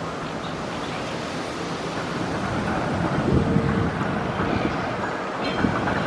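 Low rumble of passing traffic that builds up about halfway through, with wind on the microphone.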